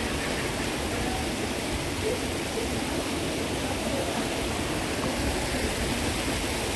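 Steady rush of flowing water, a stream or water running into the trout ponds.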